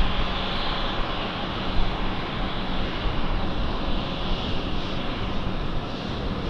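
Embraer E190 jet's turbofan engines running loud and steady, the sound easing slightly as it goes, with a high hiss that fades about a second in.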